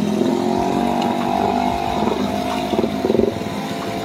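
Motorcycle engine running steadily, swelling louder about three seconds in as the rider works through the floodwater.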